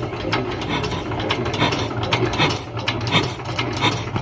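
Small single-cylinder dompeng diesel engine being turned over with its hand crank, a rapid, uneven mechanical clicking and clatter. It is cranked with the injector fuel line loosened to bleed air from the fuel system, the step before a first start.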